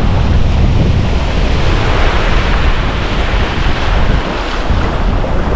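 Strong wind buffeting the microphone over small surf breaking and washing up a sandy beach. The low wind rumble eases briefly about four seconds in.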